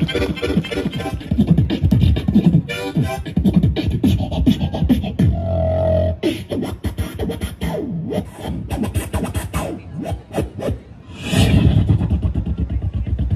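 Beatboxing amplified through a portable speaker: fast rhythmic mouth-made kick, snare and click sounds, with a short held hum about halfway through and a brief hissing burst near the end.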